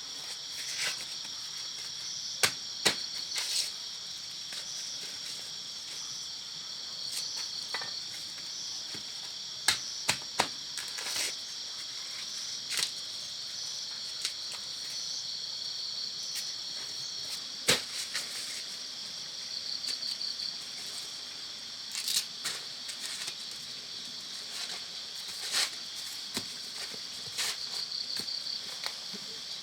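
Steady high-pitched insect chorus, with irregular sharp clicks and snaps over it several times.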